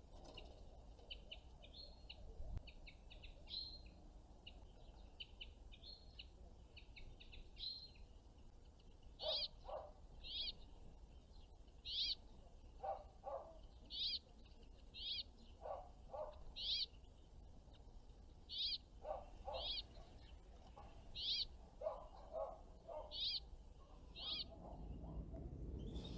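Small birds calling: short high-pitched calls repeated about once a second, with pairs of lower notes in between.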